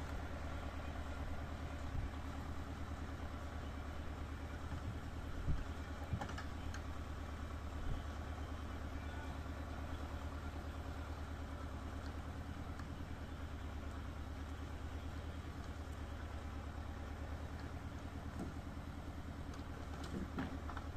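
Engine running steadily at a low, even speed, heard from inside a car, with a few faint knocks, the sharpest about five and a half seconds in.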